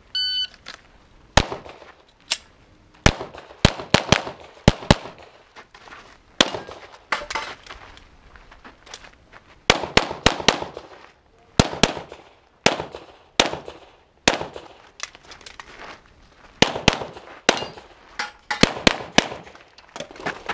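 9mm Glock 34 pistol shots in quick strings, pairs and runs of several rounds, with pauses of a second or two between strings. A brief high electronic beep sounds at the very start.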